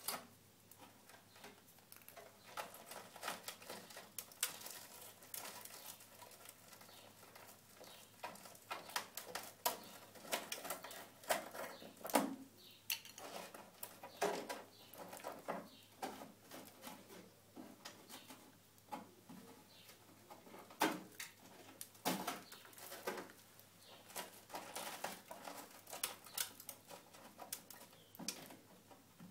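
Fingers picking and scraping at crumbling rusty material in the seam between a camper van's body panel and its wheel-arch trim, making irregular faint scratches and small clicks.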